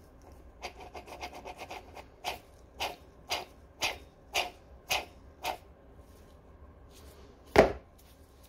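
Xiaomi M365 rear wheel hub bearing being turned by hand at its axle, grinding and rasping, which is the sign of a worn bearing due for replacement. It starts as a quick run of small clicks, then goes to about seven short rasping strokes roughly twice a second. One loud thump follows near the end as the wheel is set down on the concrete floor.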